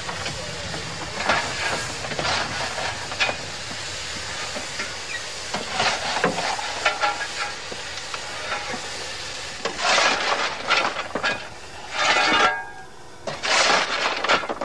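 Early steam locomotive standing in steam: a steady hiss with irregular louder bursts of escaping steam, the strongest near the end.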